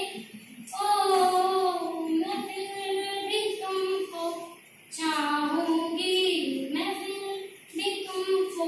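A young woman singing a Hindi film song solo and unaccompanied, in long held, gliding phrases with short breaths between them.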